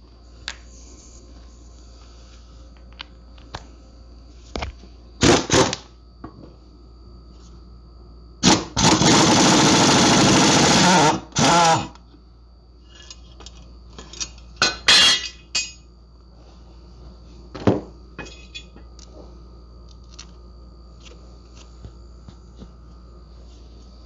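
Air-powered impact wrench loosening the mower's blade bolt: short hard bursts and one steady burst of about two and a half seconds near the middle, with clinks of metal parts being handled in between.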